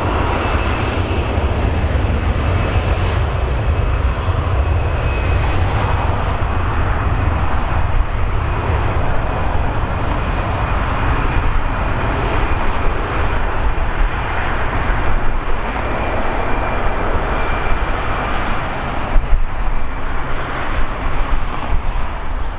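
Jet airliner engines running, a loud steady rush with a deep rumble and a faint high whine held on a steady pitch.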